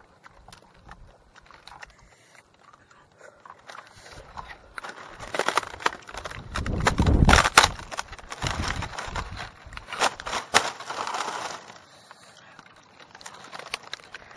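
Dry palm leaves crackling and rustling as hands pick apart roasted food laid on them. The sound grows loud through the middle, with a heavy rumble from the camera being handled up close, then settles back to faint crackles.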